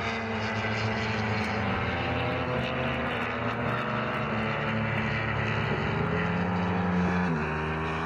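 Racing sportbike engines running at speed on the track, several engine notes overlapping in a steady drone, with a sudden change in pitch about seven seconds in.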